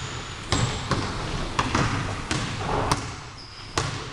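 Basketball bouncing on a hardwood gym floor: about six hard bounces at uneven intervals.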